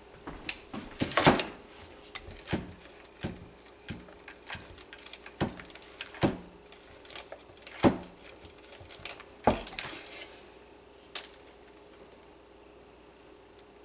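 Spatula knocking and scraping against a ceramic crockpot insert while thick hot-process soap batter is stirred, with a wooden soap mold handled on the counter: a series of sharp knocks, most in the first ten seconds, then one more about eleven seconds in.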